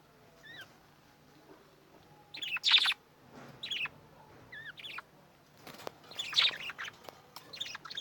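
Pet budgerigars chirping: short, quick calls that jump in pitch, coming in bursts every second or so, loudest at about two and a half seconds and again at about six and a half seconds in.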